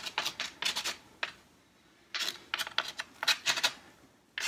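Utility knife blade scraping across wet acrylic paint on a gesso-primed plywood board: a run of short scrapes, a pause of about a second, then another run of scrapes.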